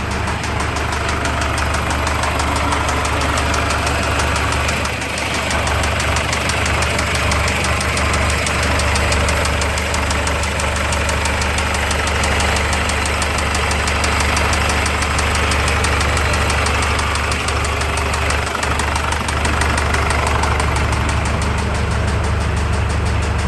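Ford Ranger engine idling steadily with a rapid, regular knock: a newly developed fault whose cause the owner does not know.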